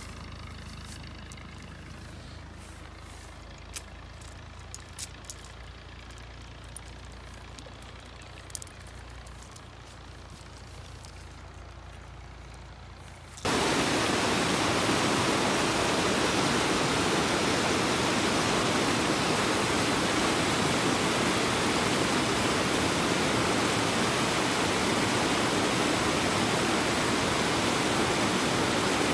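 A low steady hum with a few scattered sharp clicks, then an abrupt switch about halfway through to a loud, steady rushing noise.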